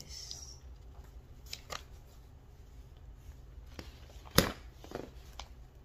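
Scattered small clicks and taps of objects being handled, with one sharp, louder click about four and a half seconds in.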